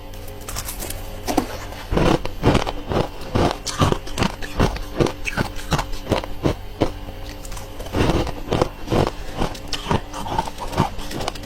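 Soft freezer frost ice bitten and chewed close to the microphone: a quick run of sharp crunches, about two or three a second, loudest around two seconds in and again near eight seconds.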